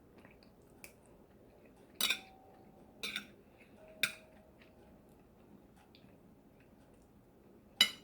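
Eating utensil clinking against tableware: four sharp clinks, three about a second apart and one near the end, two of them ringing briefly.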